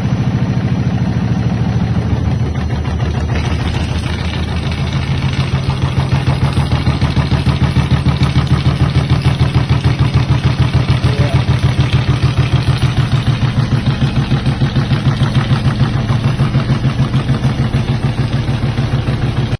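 Candy Smart Pro washer-dryer running after finally starting, a loud low hum that pulses quickly and evenly, stronger from about five seconds in.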